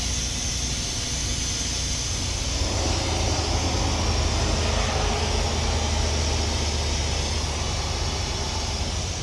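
Compressed air hissing steadily from a leak at a semi truck's air-operated engine fan clutch, over a low steady mechanical rumble that grows a little louder about three seconds in.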